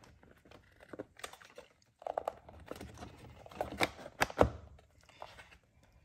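Plastic overhead-console trim parts being handled and pushed together: scattered light clicks, taps and rustles, with two sharper clicks about four seconds in as the small tabs go into their holes.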